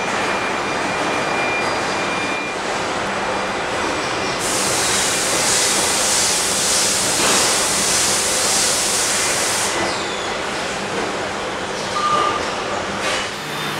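Automated car body-welding line running: a steady machinery din, with a loud hiss lasting about five seconds from about four seconds in, and a short beep near the end.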